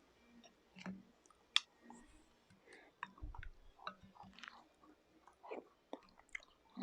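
Quiet, close chewing and small mouth sounds of a person eating soft food, with scattered faint clicks; a single sharper click comes about one and a half seconds in.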